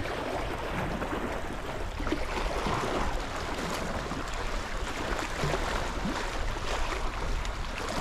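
Steady wash of sea water and wind at the shoreline, an even noise with no distinct events.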